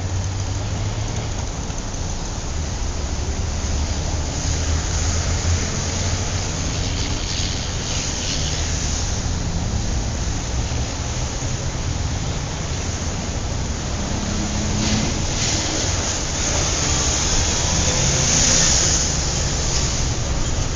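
City traffic: a steady low rumble of engines with the hiss of tyres on the road, swelling several times as vehicles pass close by.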